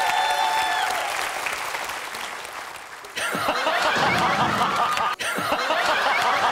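A television studio audience clapping and laughing. The crowd noise dies down, then laughter and applause break out suddenly about three seconds in, with a brief dropout near the five-second mark.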